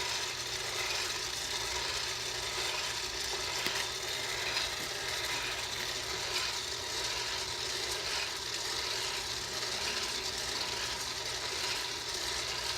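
Electric Bar Well coffee roaster running mid-roast: a steady motor whir with the beans rattling as they tumble, and a few brief clicks.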